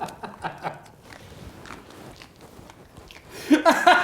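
People biting into and chewing hot dogs in a speed-eating race, wet clicky mouth noises. A voice breaks in briefly at the start, and loudly in quick repeated bursts near the end.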